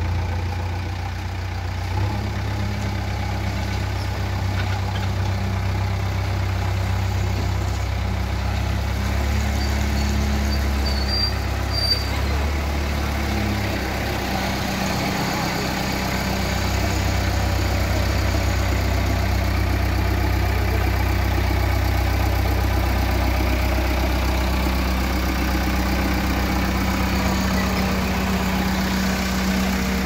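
JCB 3DX backhoe loader's diesel engine running steadily at low speed as the machine drives slowly, its pitch shifting slightly a few times.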